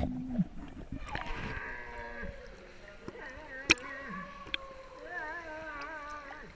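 Wordless human vocalising: long held notes that glide and then waver up and down, like someone singing or calling out. A sharp knock comes near the middle.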